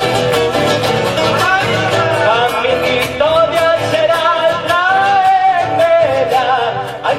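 Argentine folk music with guitars and a melody line that glides up and down above them.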